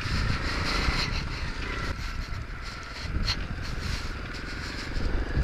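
Nitro Sky 125cc pit bike's single-cylinder four-stroke engine running steadily while riding over grass, under a continuous low rumble.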